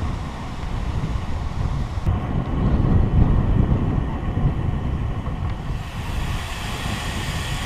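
Wind buffeting the microphone of a camera on a moving bicycle, a steady low rumble. The noise changes abruptly about two seconds in.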